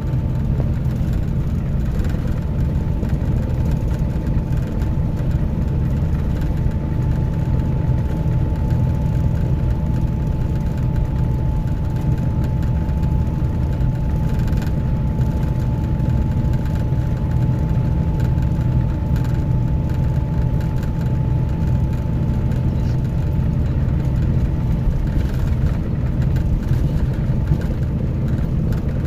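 Scania K310IB coach's five-cylinder diesel engine running steadily: a constant low drone with a thin steady high whine over it.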